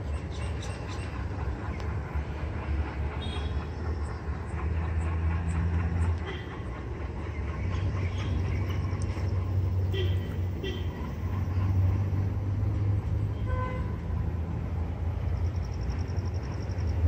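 WDG-3A diesel locomotive's ALCO 16-cylinder engine running as it pulls a passenger train away from the station toward the listener: a low, steady drone that swells and eases.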